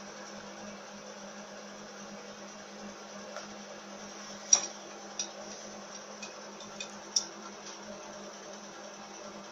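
Sharp metallic clinks of hand tools being handled at a stopped lathe. One loud clink about four and a half seconds in is followed by a few lighter ones over the next three seconds, over a steady low hum.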